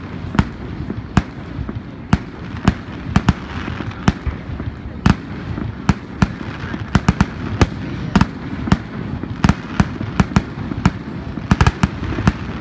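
Fireworks display: aerial shells bursting in a rapid, irregular series of sharp bangs, about two a second, over a steady background noise, with a quick cluster of bangs near the end.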